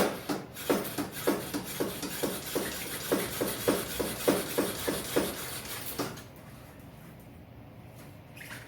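Rocky Mountain Toonie dropper post being cycled up and down by hand: a sharp click, then a regular knock about three times a second with a hiss over it, stopping about six seconds in. The post is still sticking and is being worked to free it.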